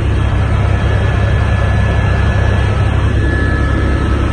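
Helicopter cabin noise in flight: a loud, steady low drone from the rotor and engine, with a thin, steady high whine over it.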